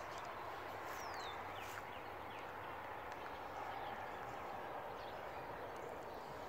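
Steady outdoor background noise with several short, high, falling chirps from birds at dawn.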